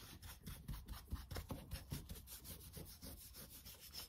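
Small brush scrubbing gel stain into the carved grooves of a wooden chair part, a quick run of faint rubbing strokes, several a second.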